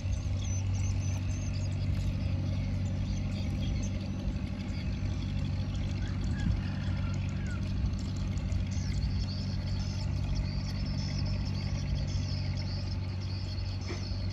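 A small engine running steadily at one speed: a low, even drone that does not rise or fall.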